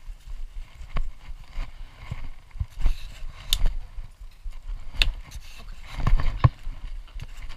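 Footsteps crunching and shuffling through dry fallen leaves, with irregular sharp snaps and knocks.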